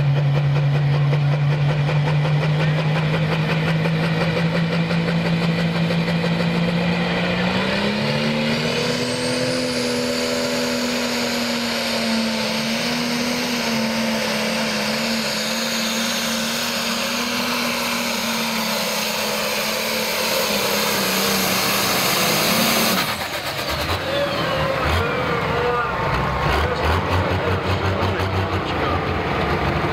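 John Deere super stock pulling tractor's turbocharged diesel engine, first held at a steady high idle on the line, then opened up to full throttle about seven seconds in as it drags the weight sled down the track. The high engine note holds for about fifteen seconds, then cuts off suddenly to a low rumble as the pull ends.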